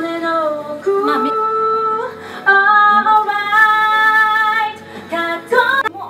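A woman singing into a handheld microphone, amplified through a small speaker. She holds several long notes, pauses briefly about two seconds in, then sings a few shorter notes near the end.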